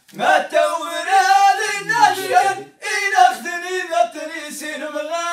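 Men singing unaccompanied in long, held, wavering phrases: Amazigh inchaden sung poetry, with a brief break about three seconds in.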